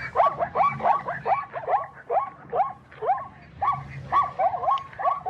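Zebra call: a fast, even run of short, high, bark-like yelps, about three to four a second.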